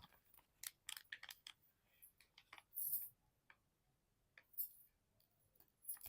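Faint, scattered crackles and clicks of a plastic snack packet being opened slowly and carefully to keep it quiet, with two short louder crinkles about three seconds and four and a half seconds in.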